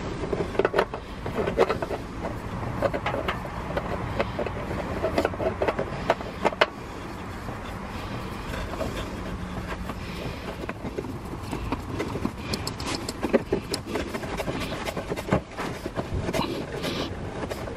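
Irregular clicks, taps and scrapes as a spin-on oil filter is screwed onto a VW Up! 1.0 petrol engine by hand, over a steady low background rumble. The clicks come in clusters: at the start, around six seconds in, and through the last few seconds.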